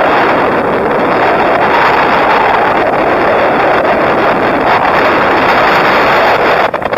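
Loud, steady rushing noise of wind across the microphone while riding, mixed with highway traffic passing alongside; it eases off just before the end.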